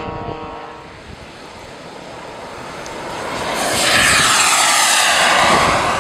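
A radio-controlled twin-propeller bomber model's engines running at idle, fading away in the first second. A radio-controlled jet model then takes off and passes close. Its engine builds to a loud rushing whine that slides down in pitch as it goes by.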